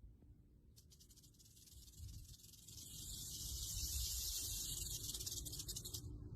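Rattlesnake shaking its tail rattle: a fast, high buzz that starts about a second in and cuts off suddenly near the end.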